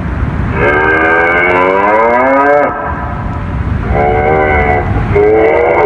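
Recorded cow mooing broadcast over a WPS-4000-4 tsunami warning siren's loudspeakers: three moos, the first long and rising in pitch, the second shorter. The mooing cow signals that the warning system is only being tested.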